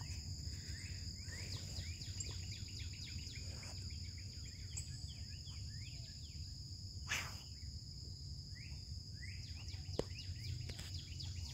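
Riverside ambience: many short bird chirps and calls over a steady high-pitched insect drone, with a low background rumble. A single short sharp click a little after seven seconds in.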